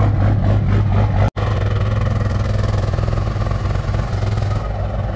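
Dodge Ram pickup's engine idling steadily, a constant low hum that cuts out for an instant about a second in.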